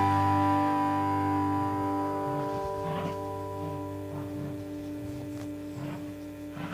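Music: one chord held and slowly fading away, with a few faint knocks underneath.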